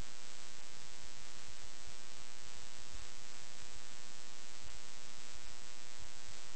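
Steady electrical mains hum with hiss, a buzzy stack of evenly spaced tones that holds level throughout.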